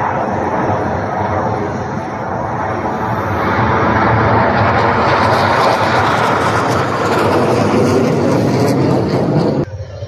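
Jet noise from a formation of KAI T-50B jets flying overhead. It grows louder about four seconds in, holds, then cuts off abruptly just before the end.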